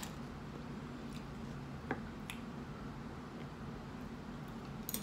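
Quiet eating sounds: a few sharp, faint clicks and crunches of tortilla chips being picked up and bitten, over a steady low hum of a fan and air conditioning.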